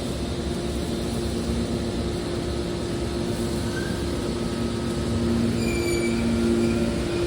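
Hydraulic scrap metal car baler running, its power unit giving a steady hum that grows a little louder about five seconds in, with a few short high metallic squeals near the end.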